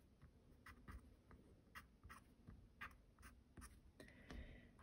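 Faint scratching of a colorless blender pencil worked over colored-pencil marks on toned mixed-media paper, in short, irregular strokes.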